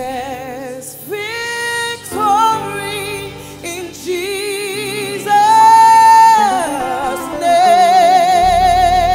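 Female gospel singer singing long, wavering held notes with vibrato over music, one high note held and then falling away about the middle; the bass drops out for most of it and comes back near the end.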